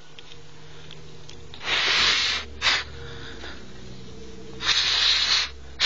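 Breathy hissing puffs close to the microphone, two long and two short, like a person's breathing.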